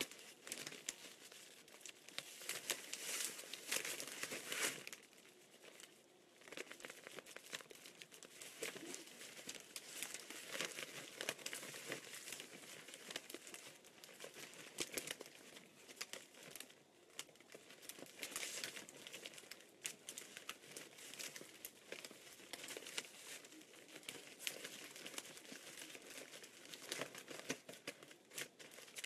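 Cellophane wreath bag crinkling irregularly as hands gather and tie it at the top, with a short lull about five seconds in.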